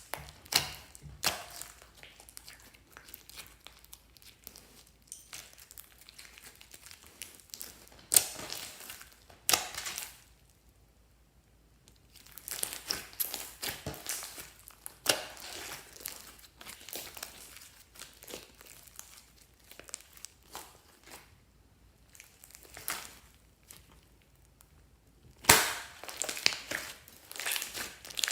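Glossy slime being squished and pressed by hand, giving irregular sticky crackles and pops, with a short quiet pause about ten seconds in.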